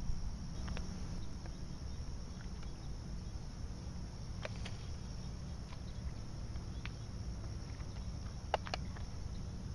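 Outdoor ambience: insects chirring steadily in a high, even band over a low steady rumble, with a few faint clicks.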